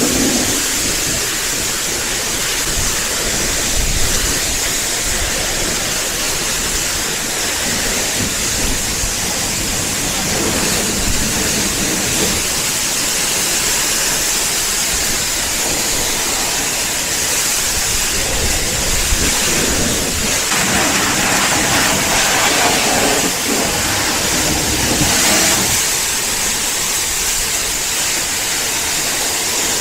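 Steady rush and hiss of water spraying at a car wash, swelling a little in level around the middle.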